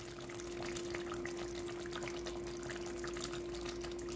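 Freshly cooked moussaka bubbling and crackling with small irregular pops in the hot inner pot of a Bosch AutoCook Pro multicooker just opened at the end of cooking, over a steady hum.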